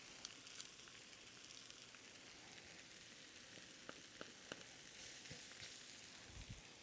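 Diced vegetables and tomato paste frying in a cast-iron pan: a faint, steady sizzle, with a few light clicks.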